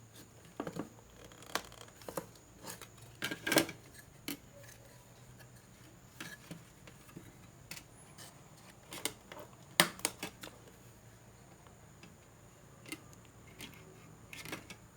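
Light metal clicks and taps of drop-ceiling grid parts being handled: the end clip of a thin sheet-metal cross tee being slotted into a main tee and locked. The clicks come scattered, with a sharp one a few seconds in and the loudest about two-thirds of the way through.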